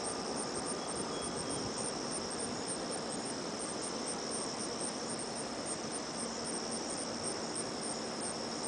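Outdoor insect chorus: a steady high-pitched drone with short, evenly repeated high chirps above it, over a faint background hiss.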